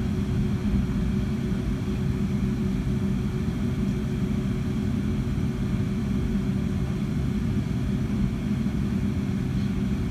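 Cabin noise inside a Boeing 757-200 taxiing after landing: a steady low rumble from the engines at idle, with a constant hum above it.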